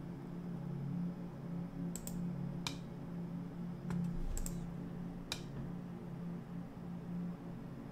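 Computer keyboard keys and mouse buttons clicking, about five sharp separate clicks, over a steady low hum.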